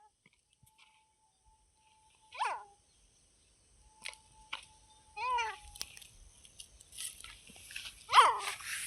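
Teetar (partridge) giving short calls that fall in pitch, three of them about three seconds apart, the last the loudest.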